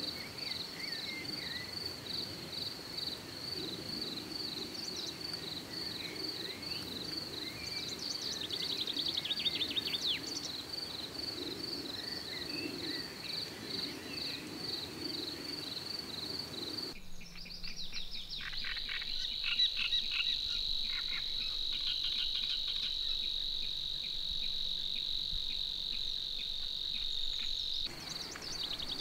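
Field ambience of chirping insects: a high, steady, rhythmic chirping at about two chirps a second, with a few bird calls. About 17 seconds in it switches abruptly to a continuous high insect trill with bird twitters. Near the end the rhythmic chirping returns.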